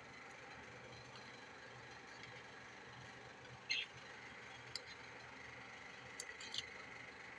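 A utensil stirring soup and noodles in a slow cooker's crock, knocking against the pot in a few short clinks, the loudest about halfway through and a quick pair near the end. A steady low hum runs underneath.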